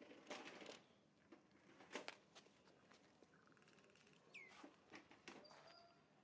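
Faint patter and scuffing of young macaques moving over dry leaves and stone rubble, a few separate clicks and rustles. Faint bird calls in the background, including a buzzy call and a falling whistled note a little past the middle.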